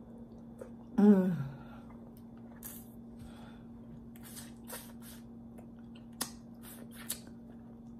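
Close-up mouth sounds of eating stewed turkey neck bones: scattered wet smacks and clicks of chewing and lips. A short, falling "mmm" of enjoyment comes about a second in and is the loudest sound. A steady low hum runs underneath.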